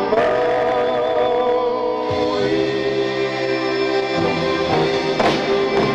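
Western vocal harmony group singing long held notes in close harmony over guitar backing, moving to a new chord about two seconds in and again around four seconds.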